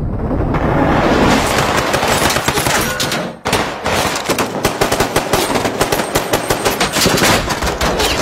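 Automatic rifle gunfire in a film shootout: a dense, unbroken volley for about the first three seconds, then after a brief break a run of rapid separate shots, several a second.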